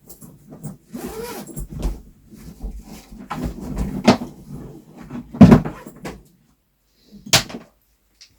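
Handling and rummaging noises: irregular knocks, thuds and rustling as things are moved about, with the loudest thud about five and a half seconds in and a sharp knock near the end.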